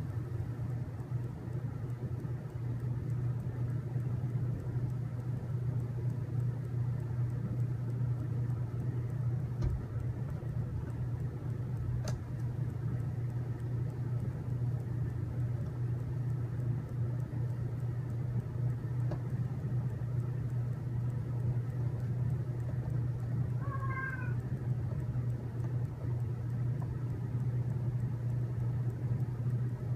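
A steady low hum with a few faint clicks, and a brief high chirp about 24 seconds in.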